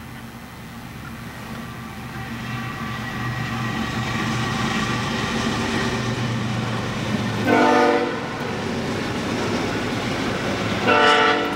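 BNSF diesel-hauled freight train approaching, its locomotive rumble growing louder over the first few seconds, with two short blasts of the locomotive's air horn, the second about three seconds after the first.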